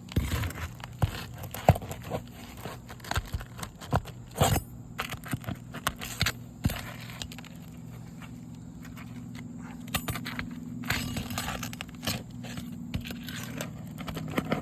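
Asphalt roof shingle being pried loose by hand and tool: scraping, crackling and tearing with many sharp knocks. The shingle is stuck down and tears instead of releasing cleanly.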